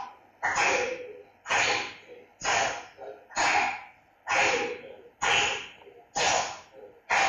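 Hand-clapping keeping a steady beat, evenly spaced at about one clap a second: the students are marking the taal while reciting a tabla composition.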